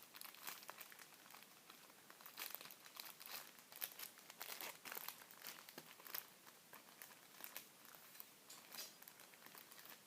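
Faint rustling and crinkling of small drink-mix packets handled and sorted by hand, many short crackles throughout.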